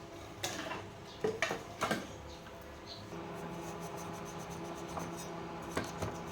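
A few light clicks and knocks, as of small objects being handled: one about half a second in, a quick cluster between one and two seconds, and two more near the end. A faint steady hum sets in about halfway through.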